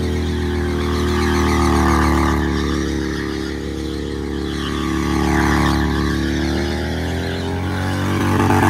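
V-twin cruiser motorcycle doing a stationary burnout: the engine is held at high revs while the rear tyre spins on the pavement. The engine and tyre noise swell and ease off three times, about every three seconds.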